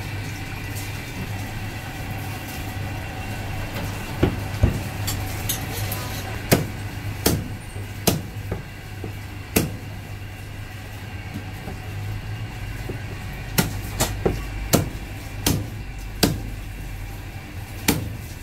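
Heavy cleaver chopping braised goose wings on a thick round wooden chopping block: a dozen or so sharp chops, irregularly spaced, starting about four seconds in, with a pause in the middle. Underneath is a steady low hum.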